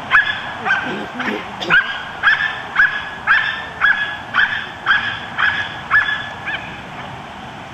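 Belgian Malinois barking repeatedly and steadily at a protection helper, about two sharp barks a second, stopping about a second before the end.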